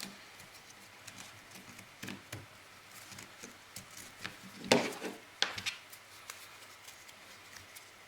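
Hands threading a lanyard cord through a Victorinox Swiss Army knife's lanyard hole: soft rubbing of the cord and small light clicks against the knife, with a louder short swish nearly five seconds in followed by a few sharper clicks.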